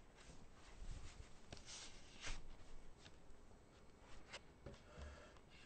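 Faint handling noise of a webcam being picked up and turned: scattered light clicks and soft knocks, with a sharper click at the end.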